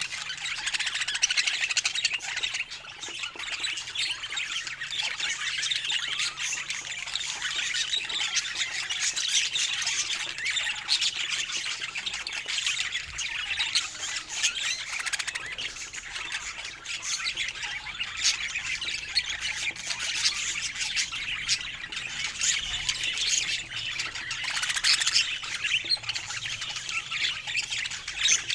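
A group of budgerigars chattering continuously, a dense mix of rapid chirps, warbles and squawks.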